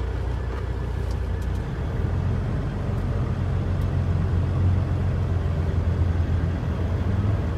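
Semi-truck's diesel engine and road noise under way, heard from inside the cab as a steady low drone. About two seconds in, the engine note rises a little and grows louder, then holds.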